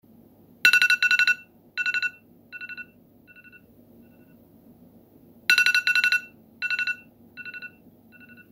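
Electronic alarm ringtone: a fast trilling beep in a loud burst that repeats softer and softer, the pattern starting over about five seconds later.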